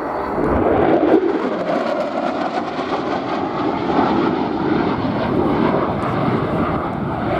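Boeing F-15QA Ababil's twin jet engines heard as it flies its display: a steady, loud rushing jet noise.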